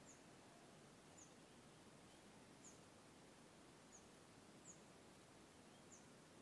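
Near silence: faint background hiss with short, high chirps from a small bird, about once a second.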